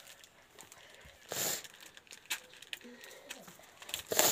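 Short rustling, crinkling noises, with a louder burst about a second and a half in and another near the end.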